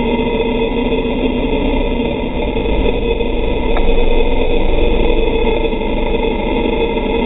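KTM Super Duke V-twin racing motorcycle engine running at fairly steady revs under load through a long corner, getting slightly louder about halfway.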